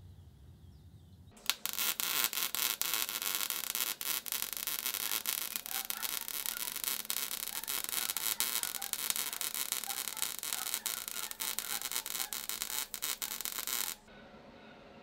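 Home-made belt grinder, driven by a 1 hp pool pump motor, grinding metal: a loud, even hiss of the abrasive belt on the workpiece, scattered with crackles. It starts suddenly about a second and a half in and stops about a second before the end.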